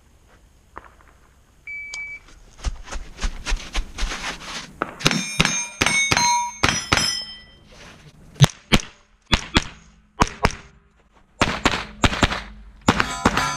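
A shot-timer beep about two seconds in, then a fast string of rifle shots with steel plate targets ringing as they are hit.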